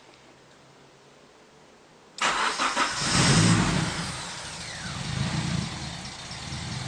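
Acura RSX four-cylinder engine started with the push-start button. About two seconds in the starter cranks briefly, the engine catches with a quick rev, then settles into a steady idle.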